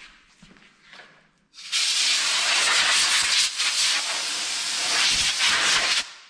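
Compressed-air blow gun hissing steadily as it blows air over split bamboo rod strips. The hiss starts abruptly about a second and a half in and cuts off sharply near the end.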